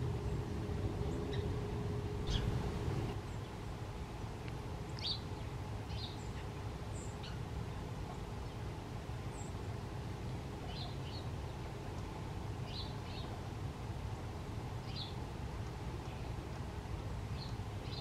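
Short, high chip calls of small songbirds, scattered every second or two, several in quick pairs, over a steady low rumble.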